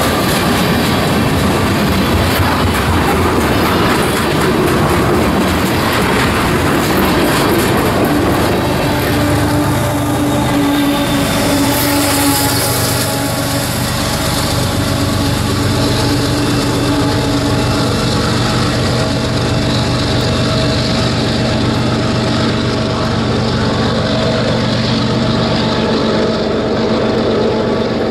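Freight train of tank cars rolling past with wheels clicking over the rail joints. About a third of the way in, the steady drone of the rear distributed-power locomotive's diesel engine comes in and holds. The locomotive is a CSX GE ES44AH.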